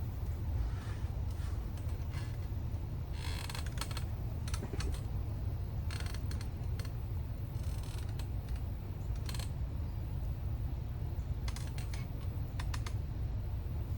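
Fishing gear clicking and rattling in several short spells, over a steady low rumble.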